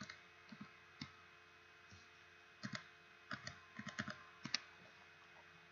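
Faint clicks of a computer keyboard and mouse: a single click about a second in, then a few quick groups of clicks.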